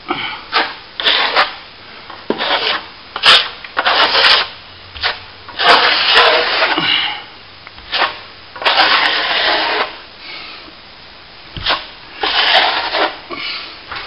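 Steel plastering trowel scraping across a freshly skimmed plaster ceiling in about a dozen irregular strokes, each lasting a fraction of a second to about a second. It is the final polish of the skim coat, with the surface wetted with water.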